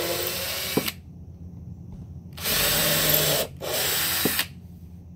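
Ryobi cordless drill boring holes into the wood of a planter box. It runs for about a second, stops, then runs again from about two and a half seconds in for about two seconds, with a brief break in the middle.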